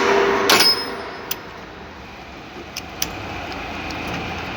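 Metal clinks and sharp taps of tools and parts being handled on a car starter motor, a louder rattle at the start and then a few isolated clicks.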